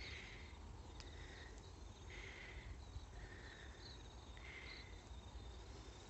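Faint crickets: a steady high trill, with a softer, lower chirp repeating about once a second.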